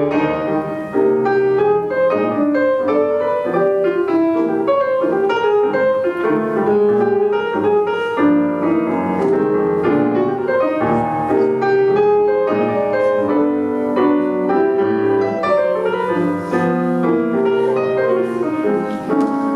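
Piano music: many quick notes played at a steady level.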